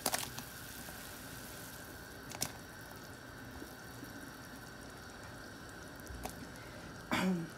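Pot of vegetable soup at a rolling boil, a steady bubbling, with a couple of brief clicks and a short louder sound near the end.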